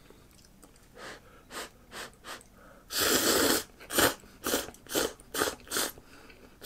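A person slurping hot instant cup noodles off chopsticks. A few soft puffs come first, then one long loud slurp about three seconds in, followed by about five shorter slurps.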